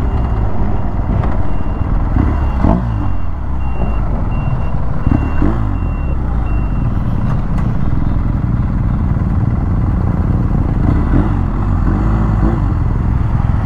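Motorcycle boxer-twin engine running under way with wind and road noise at the rider's position, engine speed swelling and dropping several times as it is throttled and eased off. Through the first half a high beeping repeats about twice a second.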